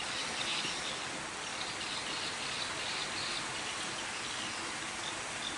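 Steady rushing of water at a small dam, with faint high chirps over it.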